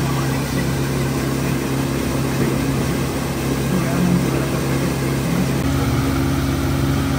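Mercury outboard motor running steadily at cruising speed, pushing the boat across the lake.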